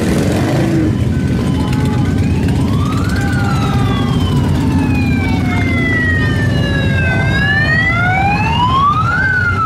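A siren wails slowly: it rises for about a second, falls over about four seconds, then rises again near the end. Underneath is the steady rumble of Harley-Davidson motorcycles riding past.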